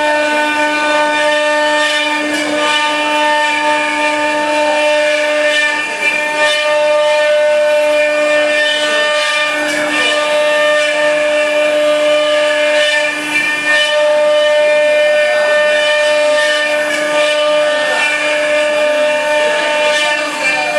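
Spindles of a multi-head CNC wood router with rotary axes running together with a steady high whine, their bits carving wooden turnings with an uneven scraping cutting noise underneath.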